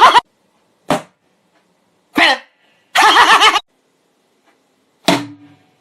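A person's voice making a few short vocal noises, one of them held for about half a second, with dead silence between them.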